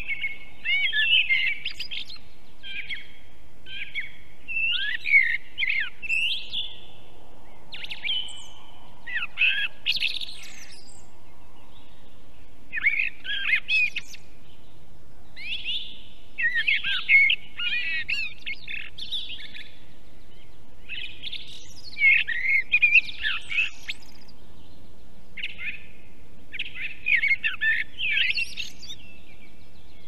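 Songbirds singing in short, varied warbling phrases, one after another every couple of seconds.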